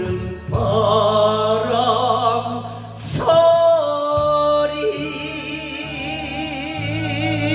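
A voice singing long held notes with vibrato, with instrumental backing music, on the closing line of a slow Korean ballad.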